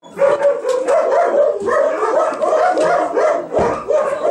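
Several dogs barking nonstop, short calls coming rapidly and overlapping one another.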